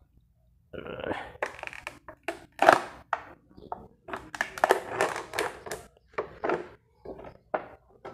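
Clear plastic sheet being peeled off the top of a stingless-bee hive box, crackling and snapping in an irregular run of sharp crinkles as it tears free of the propolis the bees have sealed it down with.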